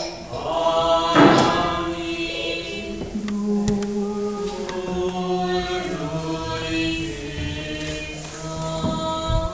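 Several voices chanting an Eastern Orthodox liturgical hymn in Romanian during a baptism rite, holding long notes that step from pitch to pitch. A brief rustling noise about a second in.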